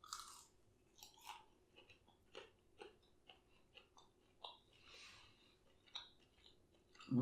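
Close-up chewing of a Flamin' Hot Cheetos-coated boneless chicken wing, a faint run of crisp crunches about two a second.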